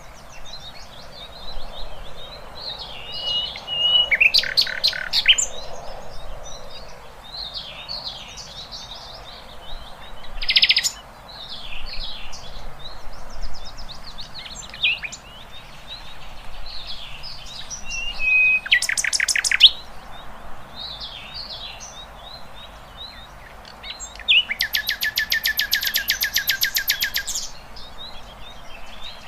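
Several wild songbirds chirping and singing, with short whistled phrases and a few quick rattling trills. Near the end comes one longer fast, evenly pulsed trill lasting about three seconds.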